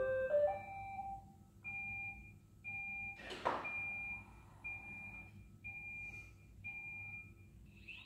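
Robot vacuum cleaner sounding an electronic start-up chime, a quick rising run of notes, followed by a steady beep repeated about once a second. A single thunk comes about three and a half seconds in.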